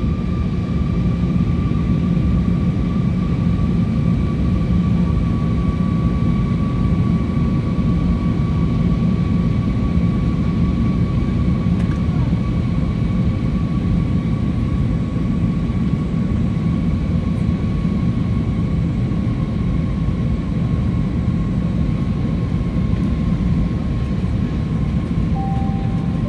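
Cabin noise of an Airbus A321neo in flight: a steady rush of air and low engine rumble, with a steady whine from its CFM LEAP-1A engines that drifts slowly lower in pitch. A short tone sounds near the end.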